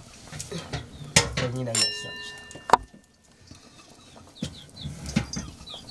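Chickens clucking, and a metal cooking pot rings for about a second after being struck, cut off by a sharp knock, the loudest sound here. A few high chirps come near the end.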